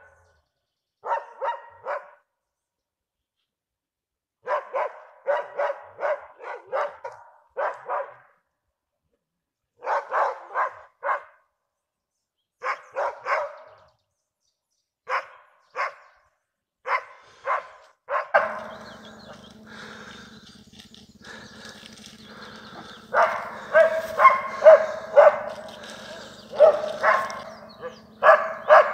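Dogs barking at a bear cub treed in a larch, in short volleys of several barks with gaps between them. About two-thirds of the way in, a steady low hum sets in underneath, and the barking becomes denser and louder.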